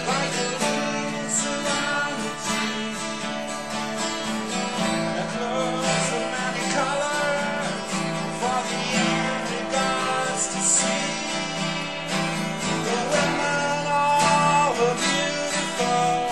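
Background music: a song with guitar.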